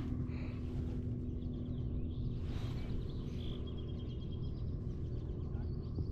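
Steady low hum over outdoor marsh ambience, with a short, faint high bird chirp about three and a half seconds in.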